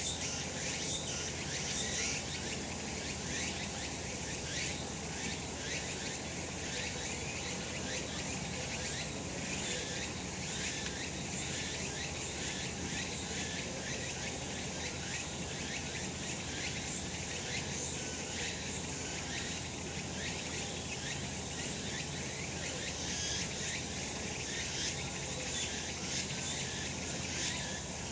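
Chorus of cicadas singing steadily in summer: a dense, high-pitched buzzing with a fast pulsing texture and no breaks.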